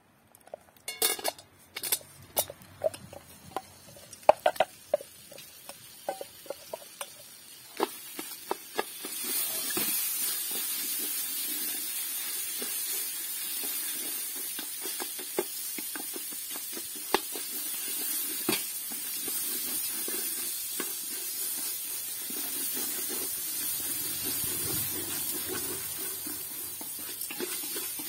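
Popcorn kernels tipped into a hot enamelled pot, rattling and clicking against the enamel, then a steady sizzle from about nine seconds in as they heat, with scattered clicks of a wooden spoon stirring them.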